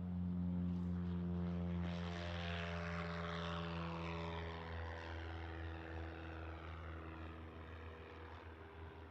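Propeller airplane passing close by: a steady engine and propeller drone, loudest in the first two seconds, with a whooshing sweep falling in pitch from about two seconds in, then slowly fading.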